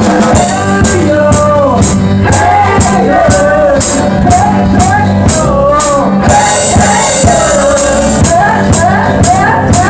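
A drum kit played in time with a song: a singing voice carries the melody over steady drum beats and cymbal hits.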